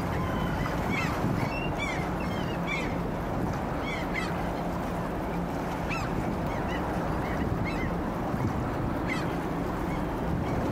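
Waterbirds calling again and again in short, arched calls over a steady low background of wind and water.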